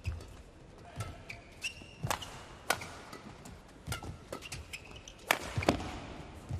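Badminton rally: sharp racket strikes on the shuttlecock roughly once a second, the loudest two in quick succession near the end, with shoes squeaking and feet thudding on the court between shots.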